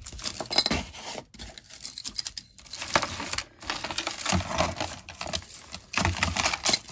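Loose costume jewelry being handled: beads and metal chains clicking and rattling against one another, a rapid, uneven string of small clicks and rustles.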